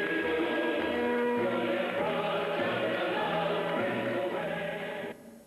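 Music with singing and a steady bass beat, which cuts off suddenly near the end.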